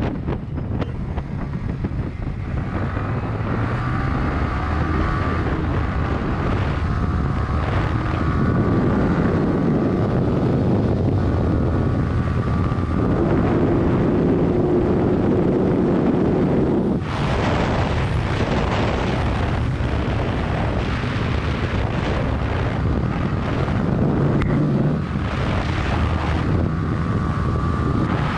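Yamaha YZF-R15's single-cylinder engine running under way, its pitch rising in places and holding steady in others, with wind rushing over the microphone. The wind noise swells louder about two-thirds of the way through.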